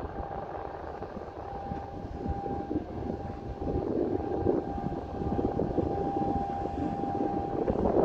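Engine of a small harbour workboat, a bilge-water collection vessel, running on the river: a low rumble with a steady high whine over it, swelling louder about halfway through.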